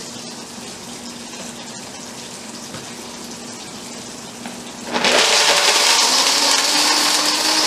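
A second blender whipping egg whites hums steadily and low; about five seconds in, a Waring 3.5-horsepower variable-speed commercial blender starts suddenly and loud, grinding solid chocolate chunks to powder, its pitch rising slightly as it runs.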